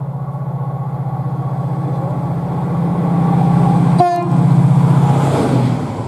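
A Class 68 diesel locomotive approaching, its engine drone pulsing steadily and growing louder. About four seconds in it gives one brief horn toot, then passes close by.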